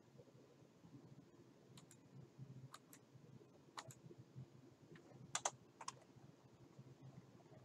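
Near silence with about half a dozen faint clicks from a computer mouse, some in quick pairs, over a low steady hum.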